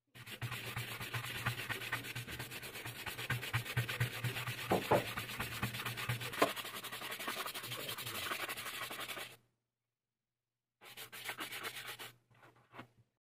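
Wooden-backed hand brush rubbed quickly back and forth over a black leather wallet, buffing the freshly applied wax finish. The brushing stops about two-thirds of the way in, comes back for a second, shorter spell, then gives way to a few faint handling sounds.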